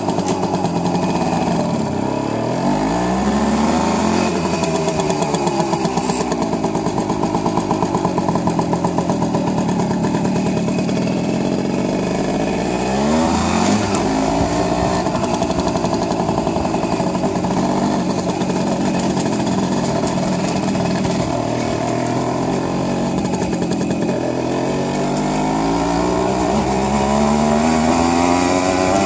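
A Jawa Mustang moped's small two-stroke single-cylinder engine running under way as it is ridden. Its pitch climbs as it pulls away about two seconds in, falls and climbs again around halfway, and rises once more near the end.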